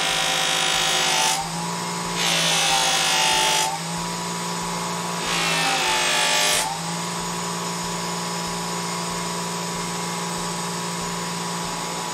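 Bench grinder motor running with a cloth buffing wheel, a knife blade pressed against the spinning wheel to hone its edge. There are three passes, each a louder rubbing hiss during which the motor's hum drops slightly in pitch under the load. The last pass ends a little past halfway, and after it the wheel spins free with a steady hum.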